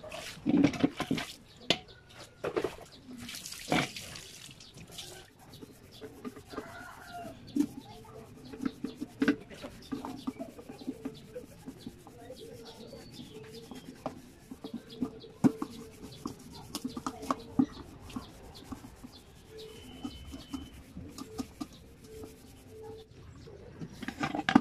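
Cookware washed by hand: water poured from a plastic dipper and metal knocks over the first few seconds, then the steady rub and scrape of hands scrubbing the outside of aluminium and soot-blackened cooking pots, with small knocks as the pots shift on the concrete.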